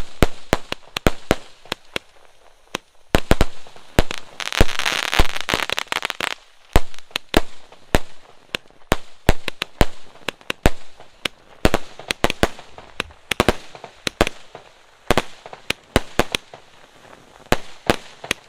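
Aerial firework shells bursting in quick, irregular succession, a sharp bang every fraction of a second. About four seconds in comes a two-second stretch of dense crackling.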